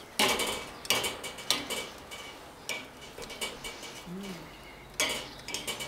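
Bratwurst sizzling on a charcoal kettle grill, a steady crackle full of small pops and ticks, with a few sharper clicks and knocks.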